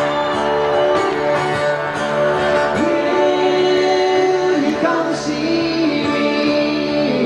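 Live band music on acoustic guitars, with a long held sung note coming in about three seconds in, moving to another held note and sliding down near the end.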